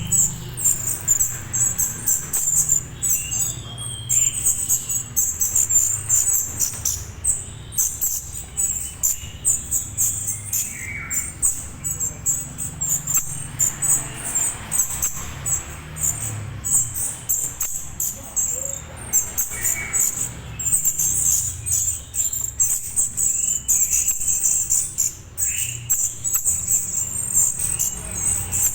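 Juvenile orange-headed thrush calling, a rapid, continuous high-pitched chittering with a few short lower chirps between, over a low steady hum.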